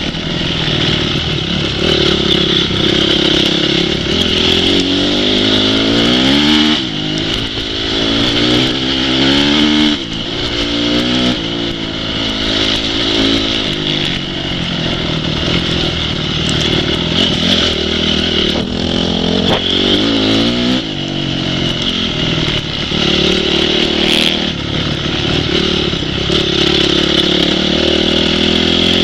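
Off-road motorcycle engines revving hard, their pitch repeatedly rising and falling as the riders accelerate and shift.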